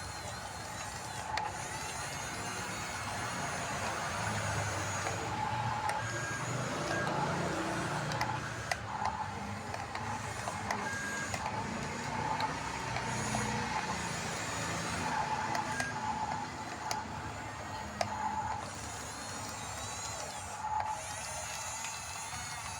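Radio-controlled model bulldozer's electric drive motors and gearboxes whirring as it moves and pushes dirt, with short beeps recurring every second or so and scattered clicks.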